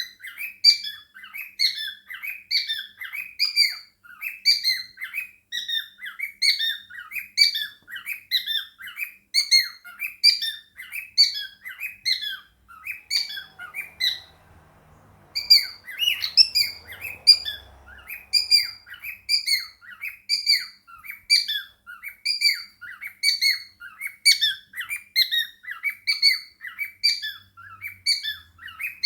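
Pet cockatiel and budgies chirping: a fast, even run of high chirps, about three a second, breaking off briefly about halfway through.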